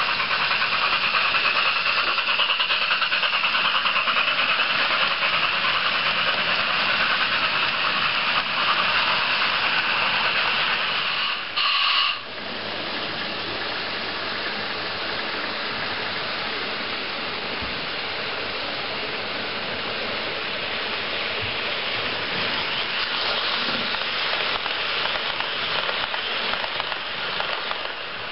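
Digital sound decoders in Märklin H0 model steam locomotives playing steam hiss and exhaust through their small speakers, together with the running of the model trains on the track. A brief shrill tone comes about twelve seconds in, after which the sound is somewhat quieter.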